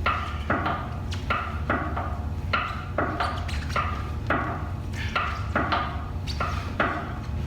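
Repeated sharp knocks, about two or three a second, over a steady low hum.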